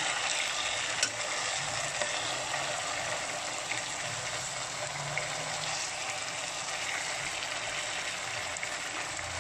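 Marinated chicken pieces sizzling steadily as they shallow-fry in coconut oil in a pan, with a few faint pops of spitting oil.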